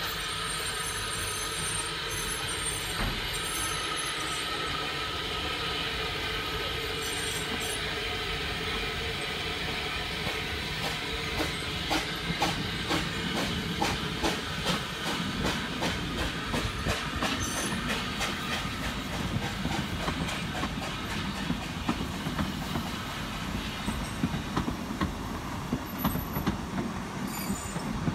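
Narrow-gauge steam locomotive Lyn hissing steam as it pulls away with its train. Its coaches then roll past, wheels clicking repeatedly over rail joints and points from about ten seconds in, with a growing low rumble.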